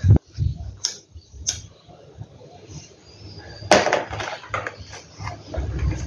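Hands adjusting a sheer ribbon bow on a clear plastic gift box: rustling and crinkling of ribbon and plastic, with a few sharp clicks and taps, and a louder crinkle about four seconds in.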